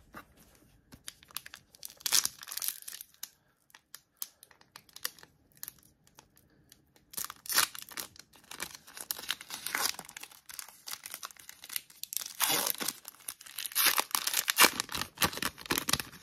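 Crinkling and tearing of a trading-card pack wrapper being handled and opened, in irregular bouts of crackle.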